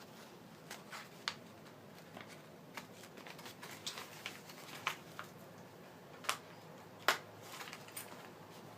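A paper note being opened and unfolded by hand: scattered light paper rustles and crinkles, the sharpest about seven seconds in.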